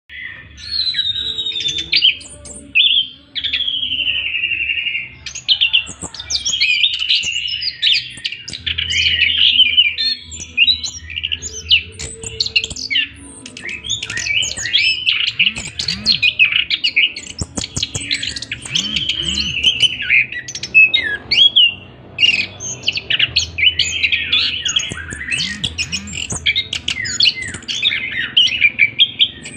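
Orange-headed thrush singing a long, unbroken rolling song of rapid, varied whistled and chattering phrases.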